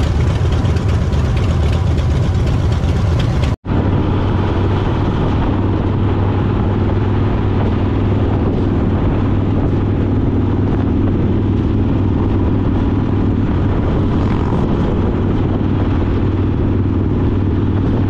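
Harley-Davidson Fat Boy V-twin engine running steadily under a rider with road noise, heard from the bike itself. The sound cuts out for an instant about three and a half seconds in, then goes on as a steady low hum.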